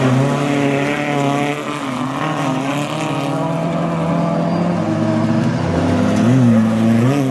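Folkrace cars' engines running hard at high revs on a dirt track. The pitch dips and climbs again as they lift, shift and power out of the bend, with two brief rev swells near the end.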